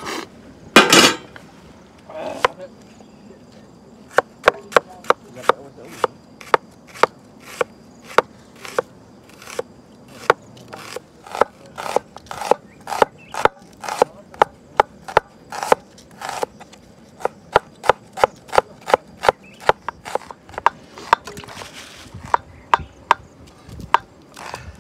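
Kitchen knife slicing small red onions on a plastic cutting board: a steady run of sharp cuts, about two a second, thinning out near the end. One loud knock about a second in.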